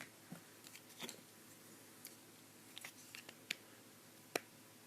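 Scattered small clicks and taps of plastic toy-castle pieces being handled and snapped together, the sharpest click about four seconds in.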